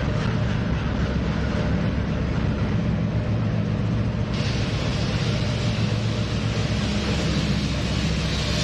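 Norfolk Southern GE diesel-electric freight locomotives passing close by at low speed, engines running with a steady low drone over a rushing rumble. About four seconds in, the rushing part turns abruptly brighter and hissier.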